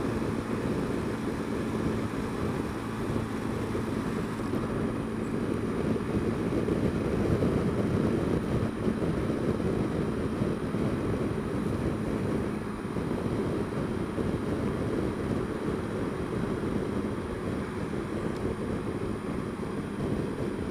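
Honda Dio scooter under way on a city road: steady engine drone mixed with wind rushing over the rider-mounted camera's microphone, a little louder about a third of the way through.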